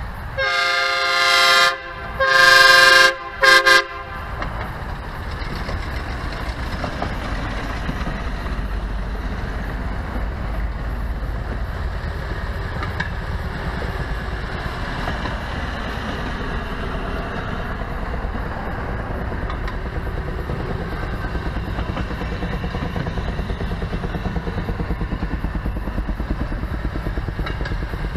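Railroad speeder's horn sounding two long blasts followed by two short toots, a chord of several tones, as the motor cars approach a road crossing. Then the speeders' engines running and their wheels on the rails, a low steady rumble growing slowly louder as they come along the trestle.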